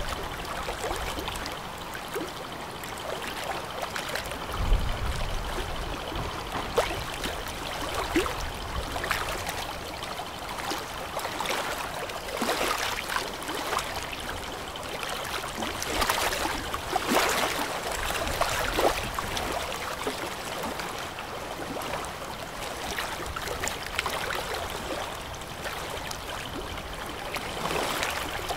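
River water splashing and trickling as an excavator bucket dips into the river and lifts out with water streaming off it, with a cluster of louder splashes around the middle.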